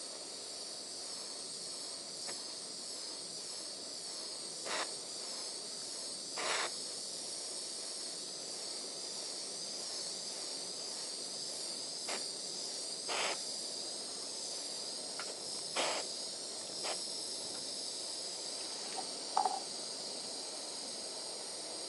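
Steady high hiss of a hand torch's flame playing on a blob of solder paste, with a few short pops standing out over it.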